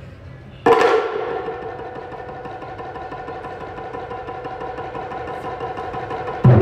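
Taiko drums: a single strike, then a fast continuous drum roll that slowly swells in loudness, breaking into loud ensemble strikes near the end.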